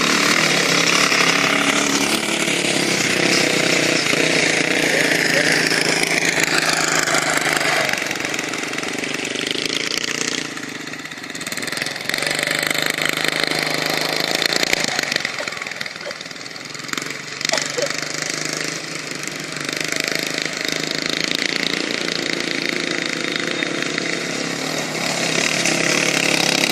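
Off-road buggy engine running under load as it drives, its pitch rising and falling with the throttle and easing off twice.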